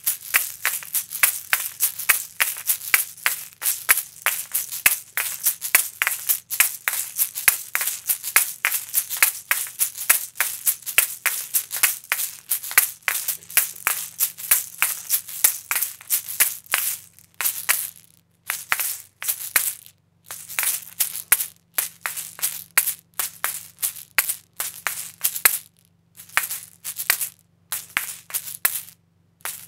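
Asalato shakers, two seed-filled gourd shells joined by a cord, swung and clacked in a fast, steady rhythm of sharp rattling clicks. From about seventeen seconds in the pattern turns sparser, broken by short pauses.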